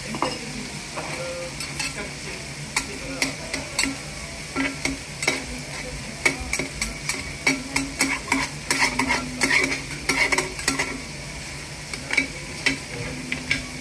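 A metal spatula scraping, chopping and tapping on a hot iron teppan griddle as it stirs cabbage, noodles and broth, over a steady sizzle. The sharp, irregular clicks of the spatula start a couple of seconds in.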